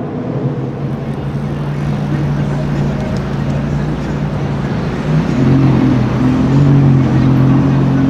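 McLaren twin-turbo V8 running at low revs, getting louder about five seconds in as the car pulls away through the intersection.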